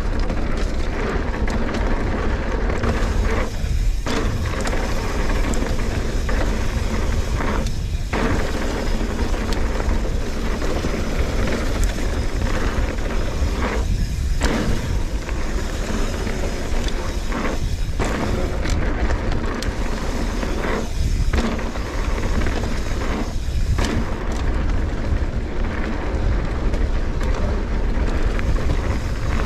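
Wind buffeting a GoPro action camera's microphone while riding a Trek Fuel EX 8 full-suspension mountain bike down a dirt trail, with tyre rumble and frequent knocks and rattles over bumps. The noise dips briefly several times.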